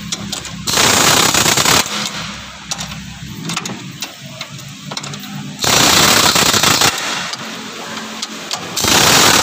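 Impact wrench hammering in short bursts on the bolts of a car's upper engine mount. There are three bursts of about a second each: the first just under a second in, the second a little past halfway, and the third near the end.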